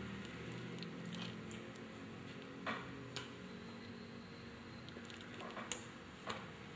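A small fruit being squashed in the crook of a flexed arm, giving a few short, sharp squelches and cracks as it bursts in the second half, over a steady low hum.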